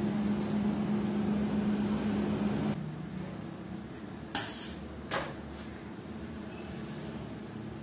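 Steady machine hum of kitchen equipment with a low held tone that drops out about three seconds in, leaving a quieter hum; two light knocks about four and five seconds in as the cake is handled.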